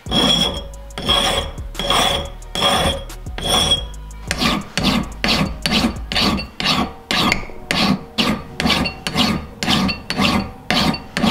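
Hand file rasping on the edge of a cut steel bracket held in a vise, rounding off its corners. About five slower strokes with a high ring come first, then quicker, steady strokes, about two a second.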